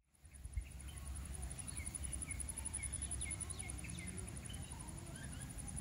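Countryside ambience fading in: an insect's steady, high-pitched, rapidly pulsing trill, with a bird giving a run of short falling chirps over a low background rumble.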